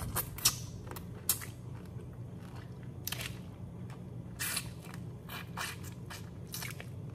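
Close-up eating of boiled crawfish: irregular wet sucking and smacking at the lips with small crackles of cracked shell, loudest about half a second and just over a second in.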